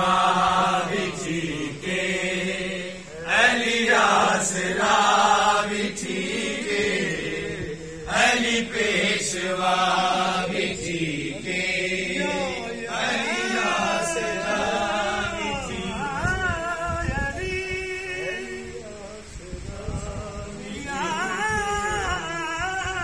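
Punjabi folk-style singing: a voice holding long, wavering notes with gliding ornaments over a steady musical accompaniment.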